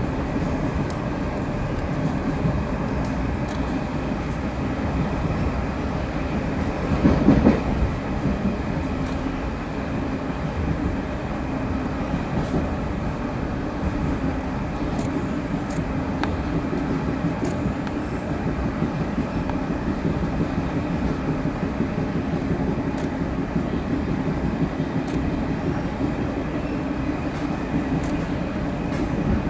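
Running noise of a Taiwan Railways local commuter train, heard from inside the carriage: a steady rumble of wheels on rail with faint scattered clicks. There is a brief louder surge about seven seconds in.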